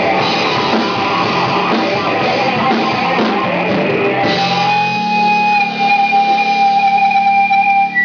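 Stoner rock band playing live: distorted electric guitar, bass and drums. About four seconds in the full band drops away to long held, ringing guitar notes over a sustained low note.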